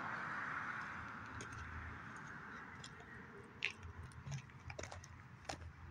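Faint traffic in the background, a passing vehicle fading away over the first few seconds, then a few soft crunches of footsteps on gravel.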